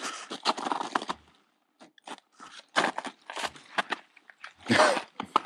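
Footsteps crunching through snow and dry leaves in irregular bursts, with short pauses between.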